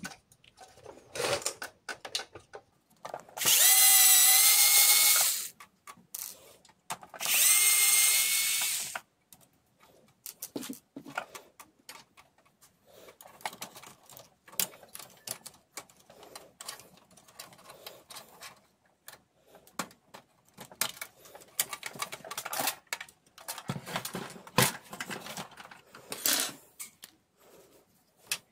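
Electric screwdriver running twice for about two seconds each, about three and seven seconds in, backing out two printer screws, its motor whine wavering slightly in pitch. Scattered clicks and clatter of screws and plastic parts being handled follow.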